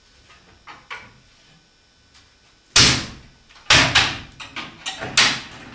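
Four loud, sudden bangs, the first about three seconds in and the rest close together after it, each fading away over a fraction of a second.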